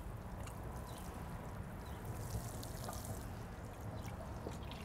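Water pouring steadily from a plastic watering can onto the soil around a lavender plant.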